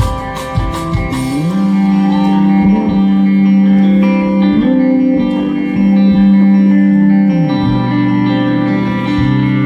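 Live rock band playing an instrumental passage: electric guitar holding long notes and sliding between pitches over bass, with a few drum hits in the first second.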